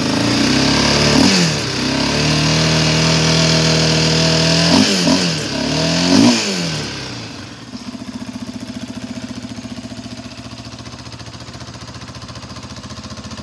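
Yamaha Raptor 700R ATV's single-cylinder four-stroke engine revved high, then dropping back. It holds a steady raised idle, is blipped twice, and settles about seven seconds in to a lower, even idle.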